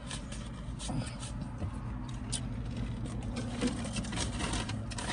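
Steady low hum of an idling car, heard inside the cabin, with scattered light crinkles and clicks from food packaging being handled.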